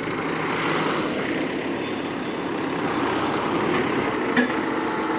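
Heavy tipper truck's diesel engine running steadily, with one sharp click about four seconds in.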